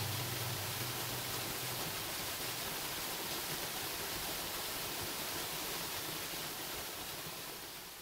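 Waterfall pouring onto rocks and into a pool: a steady, even rushing hiss, with a low hum under it for the first couple of seconds, fading out near the end.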